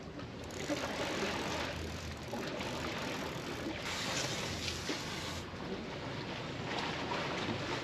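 Steady rush of wind and sea water around a sailing catamaran under way in waves, swelling a little around the middle.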